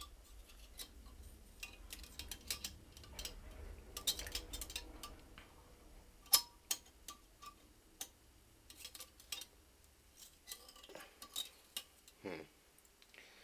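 Straightened metal coat hanger clicking and scraping irregularly against a porcelain toilet bowl as it is poked down the drain to clear a clog, with one sharper click about six seconds in.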